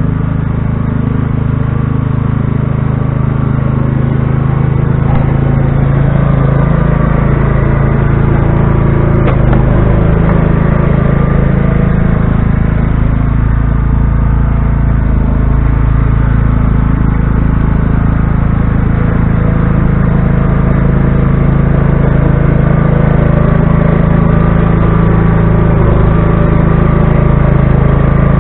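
Riding lawn tractor's small gasoline engine running steadily as the tractor plows snow with a front blade, a constant engine drone whose pitch shifts slightly as it works.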